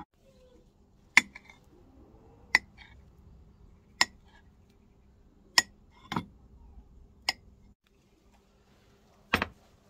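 A knife blade clinking against a ceramic plate while slicing a ball of mozzarella: about six sharp, separate clinks roughly a second and a half apart, each ringing briefly. A louder, longer knock comes near the end.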